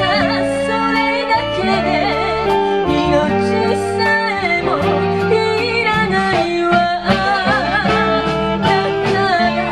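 Female vocalist singing a Japanese kayō ballad with a wavering vibrato, backed by a live band of electric guitars, drum kit and saxophones.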